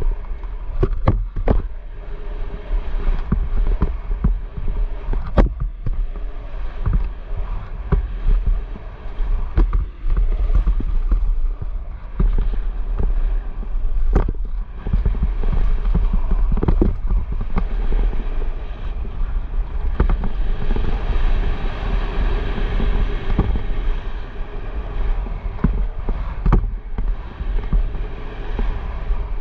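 Wind buffeting the microphone in a heavy low rumble, with scattered sharp knocks and clicks.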